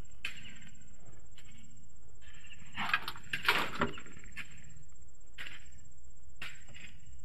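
Night insects trilling steadily on one high note, with scattered short scrapes and knocks from men working in the mud, loudest in a cluster about three to four seconds in.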